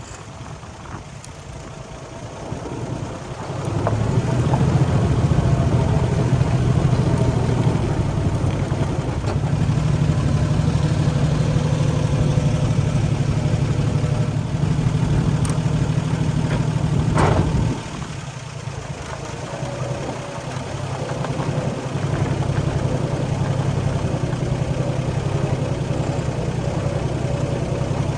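Old haystacker's engine running, speeding up about four seconds in and holding steady, then dropping back just after a single sharp knock partway through, before picking up again a few seconds later.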